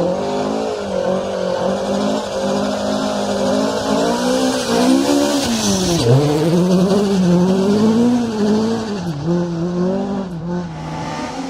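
Rally car engine at high revs, its pitch rising and falling as the driver changes gear and lifts, with a sharp drop about halfway through before it climbs again, over a continuous hiss of tyre noise.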